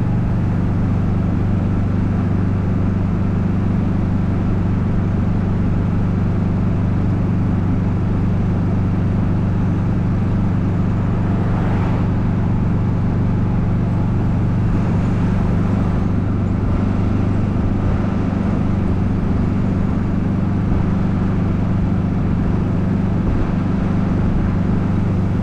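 Golf cart driving along a paved road at a constant speed, its motor giving a steady low hum over road and tyre noise.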